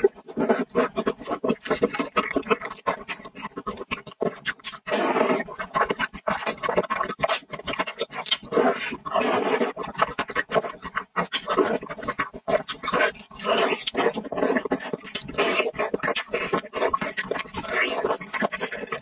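Close-up slurping and chewing of sour and spicy noodles in broth: many quick wet mouth sounds, with longer slurps about five and nine seconds in.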